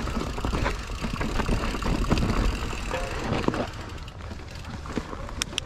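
Mountain bike riding over a rough, rooty trail: a steady low rumble with frequent rattles and knocks from the tyres and frame, a little quieter from about three and a half seconds in.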